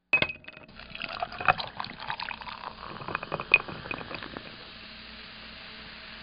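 Liquid being poured into a glass: a flurry of clinks and cracks with a few ringing glass clinks for the first few seconds, then a steady even pour.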